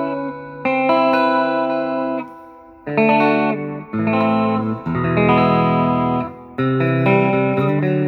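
T-style electric guitar played through an amp with the selector in position two, the P90 together with the split neck humbucker in parallel. It plays a series of strummed chords, about five, each ringing for a second or so before being stopped.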